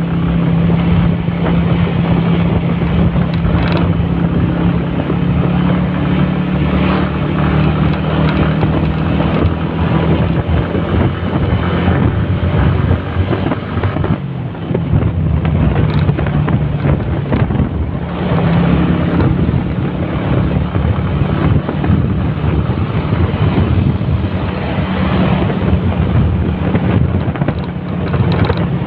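Motorcycle engine running steadily while riding, with wind buffeting the microphone. The engine note eases off briefly about halfway through, then picks up again.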